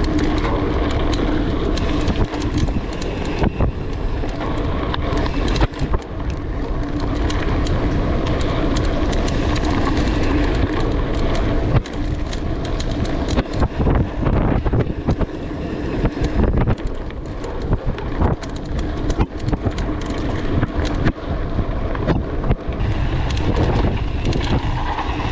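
Mountain bike riding fast down a dirt trail: wind buffeting the camera microphone over the rumble of knobby tyres on dirt, with frequent knocks and rattles as the bike goes over bumps.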